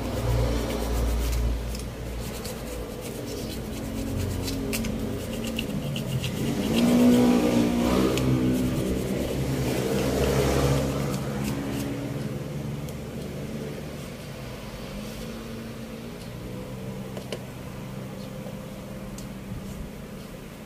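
Motor vehicle engine running, growing louder with a shifting pitch about six to eleven seconds in, then fading to a steadier, weaker hum.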